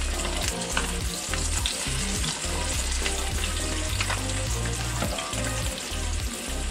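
Okoy, silverfish-and-egg fritters, frying in hot oil in a pan with a steady sizzle. A utensil clicks against the pan a few times.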